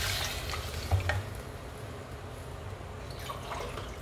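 Wooden spatula stirring chicken pieces in freshly added water in a stainless steel pot, with sharp knocks against the pot about a second in, over faint liquid sloshing.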